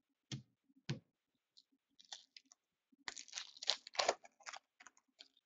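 Two soft knocks of cards being set down on a table, then a trading-card pack's foil wrapper crinkling and tearing as it is opened, loudest about three to four seconds in.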